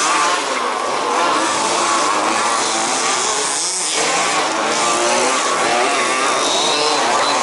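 Several 1/5-scale off-road RC cars' small two-stroke petrol engines running together around the track, their buzzing pitches rising and falling as they accelerate and back off.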